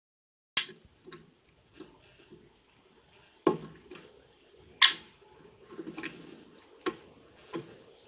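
Great spotted woodpecker pecking at sunflower seeds and walnuts on a wooden board: irregular sharp taps, about eight of them, the loudest about five seconds in.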